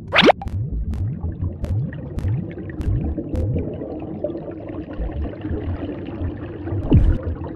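Cartoon underwater ambience: steady low bubbling and gurgling with small bubble pops. It opens with a loud, quick falling swoop, and another falling swoop comes near the end.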